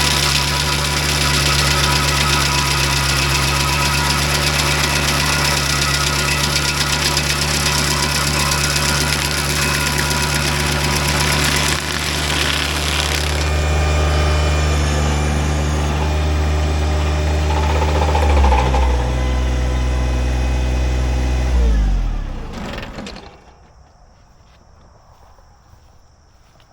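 Tractor engine driving a PTO-mounted stump grinder with a 24-inch carbide-toothed disc, grinding a dry, seasoned stump with a steady engine drone under a harsh grinding hiss. The grinding noise thins about halfway through. Near the end the engine and disc wind down, falling in pitch, and stop.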